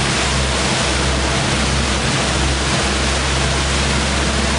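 Steady rush of churning, spraying water astern of a boat under way at trolling speed, over the constant low drone of the boat's engine.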